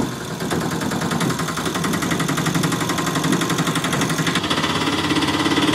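Small engine sound running with a steady, rapid putter: an engine sound effect laid over a string-pulled toy auto rickshaw.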